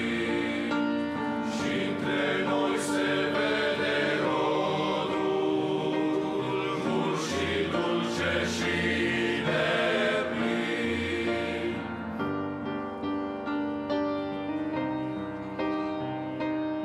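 A men's choir singing a hymn in Romanian with accompaniment; about three-quarters of the way through the voices stop and a piano plays on alone with a slow, gentle interlude.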